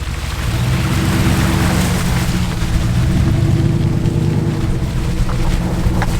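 1998 Dodge Ram 2500 pickup's engine pulling steadily under load as it drives through trail mud, building up over the first second, over a constant rush of tyre and mud noise.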